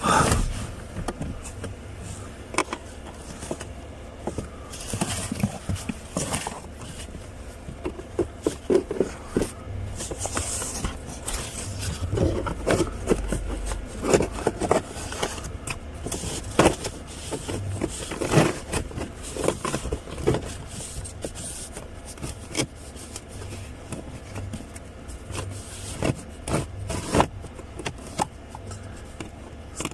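Irregular scraping, clicking and knocking of plastic as a cabin air filter is pushed into its housing behind the dashboard and the surrounding plastic parts are worked by hand.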